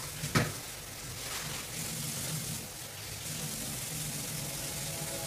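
A steel pot of vinegar pickling brine heating on a lit gas burner, hissing steadily as it nears the boil, with one sharp click about half a second in.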